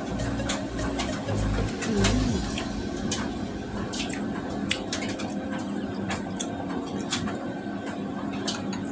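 Cutlery clicking and tapping on a plate during a meal, with a few low cooing sounds in the background.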